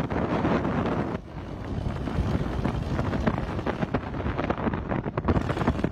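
Light bush plane's engine and propeller close by as it comes in low over a gravel strip, mixed with heavy wind buffeting on the microphone.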